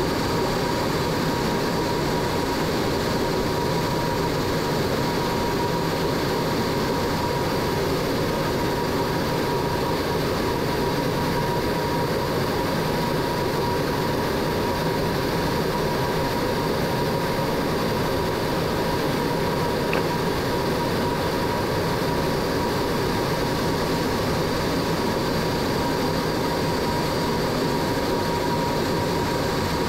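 Steady jet engine and airflow noise inside a MiG-17's cockpit in flight, unchanging throughout, with a thin steady high tone.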